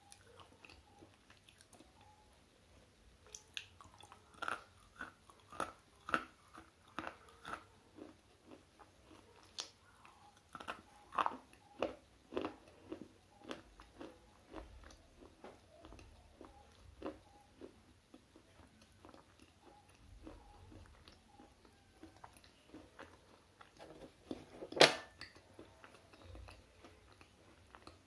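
Slate pencil being bitten and chewed close to the microphone: a run of sharp crunches about twice a second a few seconds in, then softer chewing, with one loud crunch near the end.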